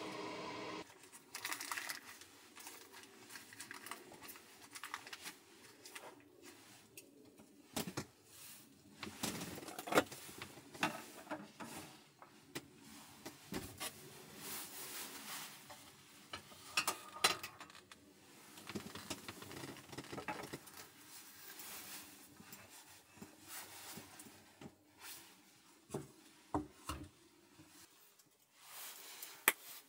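Cookware and tableware being handled on a wooden table: scattered knocks, clinks and rubbing as a bamboo steamer, its lid and a plate are moved and set down.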